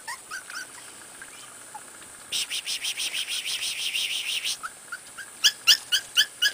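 Pembroke Welsh corgi puppies squeaking and whimpering in short high yips, loudest near the end. About two seconds in, a rapid high chattering trill runs for about two seconds.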